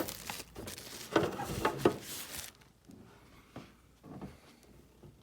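Hands unpacking items from a box: a run of knocks, clicks and rustling in the first couple of seconds, then a few faint taps.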